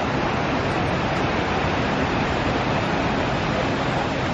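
Steady rushing noise of ocean surf breaking on the shore.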